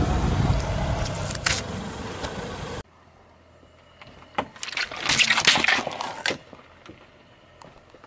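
A car tyre rolling over a squashed tomato on asphalt, with dense tyre and road noise. After a sudden cut, a car tyre rolls onto squishy toys filled with water-gel beads and crushes them: a quick run of crackling pops, loudest around the middle, then a few scattered clicks.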